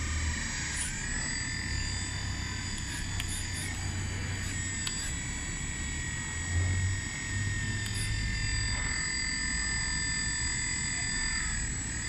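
The 1:14-scale metal RC backhoe's electric motor running with a steady whine and a low hum beneath while its arms are worked from the transmitter. The pitch shifts slightly a few times and swells briefly about six and a half seconds in as the load changes.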